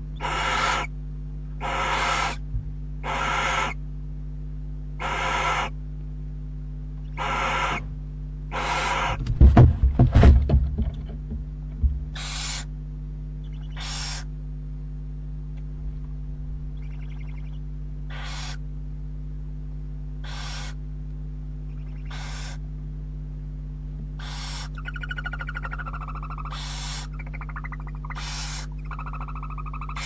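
Barn owl owlet's repeated hissing food-begging calls (snoring), each about half a second long and coming every second or two. About ten seconds in there is a burst of heavy thumps and scuffling as the adult barn owl flaps out of the nest box. Near the end comes a wavering twittering call, over a steady low electrical hum.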